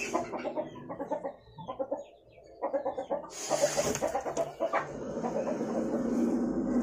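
Chickens clucking in short repeated calls, with a brief breathy hiss about three and a half seconds in.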